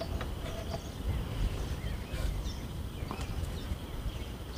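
Conibear trap being clamped in a cast-iron bench vise: a few scattered light metal clicks and clinks from the trap springs and the turning vise handle, over a low steady background rumble.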